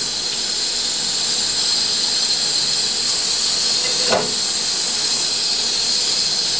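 Steady hiss of chicken curry cooking in an open aluminium pressure cooker over a gas burner, with one short knock about four seconds in.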